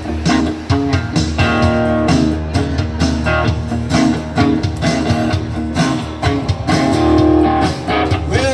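Live acoustic guitar being strummed together with an amplified electric guitar, playing an instrumental intro with a steady rhythm.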